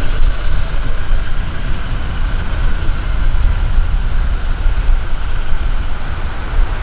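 Loud, unsteady low rumble of outdoor street ambience with traffic noise.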